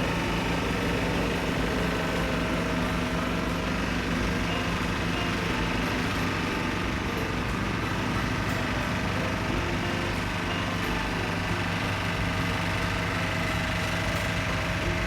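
Road sweeper running, a steady engine drone with an even level throughout.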